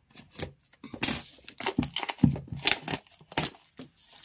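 Clear plastic shrink wrap being slit with a small knife and pulled off a cardboard smartwatch box, crinkling and crackling in a run of irregular sharp rustles.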